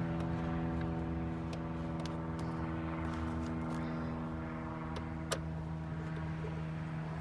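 A car engine idling steadily, with a few light plastic or metal clicks over it; the sharpest click comes about five seconds in.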